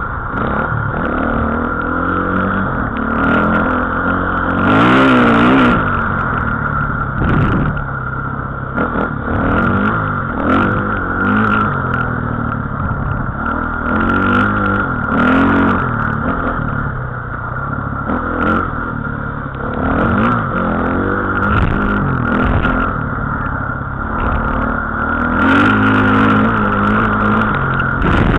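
A small engine-driven vehicle driving over a rough dirt track, heard from on board. The engine revs up and down again and again over a steady high whine, with sharp knocks and rattles as it goes over bumps.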